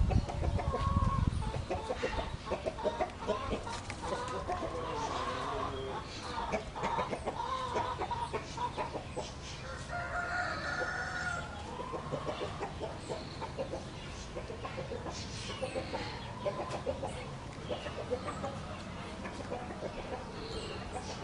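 Chickens clucking and calling in short, repeated notes, with a longer, higher-pitched call about ten seconds in.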